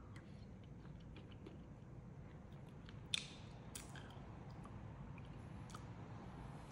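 Faint chewing of a mouthful of soft cooked vegetables, with small clicks of a fork and one sharper click about three seconds in.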